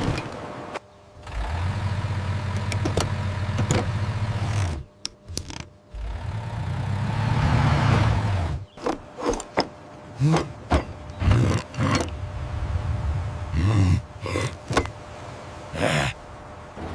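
Truck engine sound running with a low hum, then swelling as if revving, followed by a run of short knocks and clatter.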